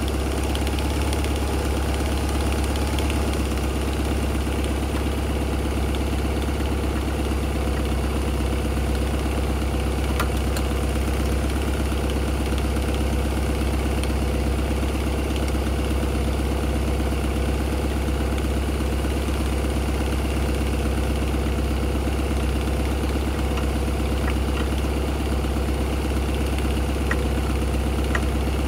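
Vauxhall Cavalier's X20XEV 2.0-litre 16-valve four-cylinder engine idling steadily, warming up so the coolant circulates through the newly fitted thermostat.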